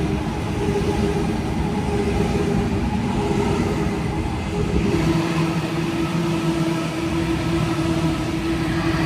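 A Sydney Trains Millennium electric train running through the station without stopping. Its motors hum in steady tones over a continuous rumble from the wheels on the rails, and the hum drops slightly in pitch about halfway through.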